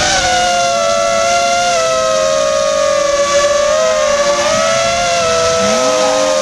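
FPV quadcopter's motors and propellers whining: a loud, steady hum of several close pitches that waver and glide slightly as the throttle changes.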